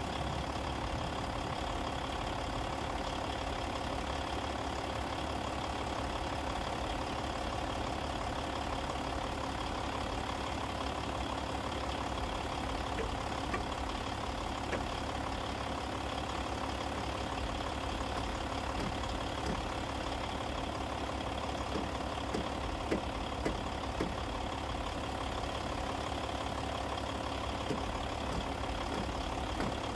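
A steady engine hum, running evenly, with a few faint knocks about three-quarters of the way through.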